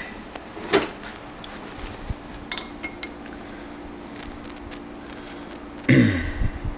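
Light metallic clicks and clinks as an outside micrometer is handled and closed onto a copper part on a stopped lathe, over a faint steady hum. Near the end comes a short louder sound that falls in pitch.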